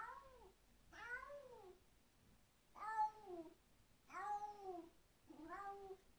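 Domestic cat yowling over and over: five drawn-out meows about a second apart, each rising and then falling in pitch.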